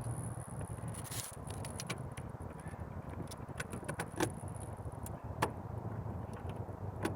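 A few light, sharp clicks and taps from plastic parts being handled in the engine bay, over a steady low hum.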